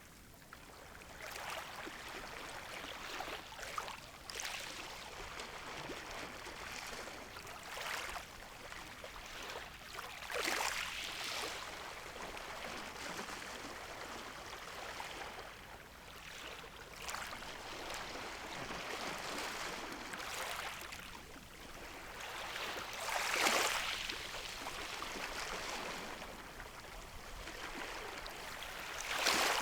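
Calm sea waves washing in, a soft hiss of surf that swells and fades every few seconds, the biggest wash about two-thirds of the way through.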